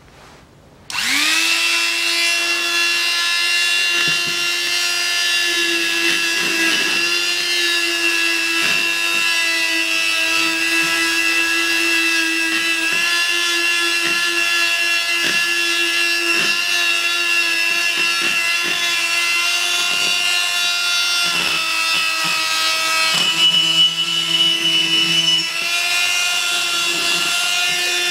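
Handheld rotary tool with a small brush attachment spinning up about a second in, then running with a steady high whine as it scrubs corrosion out of a brake caliper's piston bore. The pitch dips slightly now and then, and the sound turns louder and rougher for a couple of seconds near the end as the brush bites harder.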